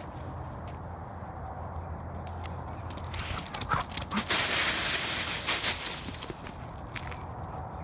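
Retriever bounding through a pile of dry fallen leaves: a loud crackling rustle with quick footfalls, from about three seconds in to about six seconds in.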